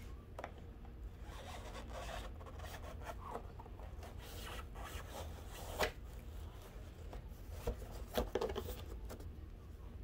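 Rubbing and crinkling of a foam insert and clear plastic packaging being handled, with a few sharp clicks of the plastic, the strongest about six seconds in.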